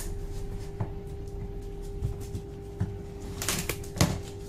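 Scattered light clicks and knocks of objects being handled, with a louder clatter of knocks near the end, over a steady hum.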